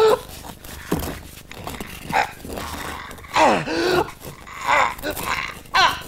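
A man's strained groans and grunts of heavy effort, several separate falling-pitched groans with breathing between them, the loudest about three and a half seconds in: the exertion of pushing a huge boulder uphill.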